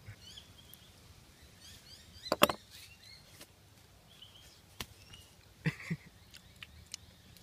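Small birds chirping now and then in the bush, with a few sharp knocks, the loudest a quick double knock about two and a half seconds in and two more just under six seconds in.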